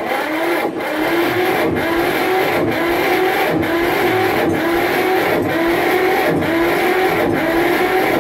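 Electric starter cranking the Deutz F1L514's single-cylinder air-cooled diesel engine. The starter's whine climbs in pitch, then drops back at each compression stroke, about once a second.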